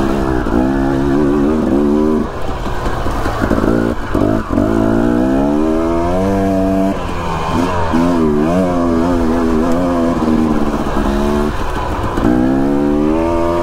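Dirt bike engine running on a trail, its pitch rising and falling constantly with the throttle, with several brief drops in revs.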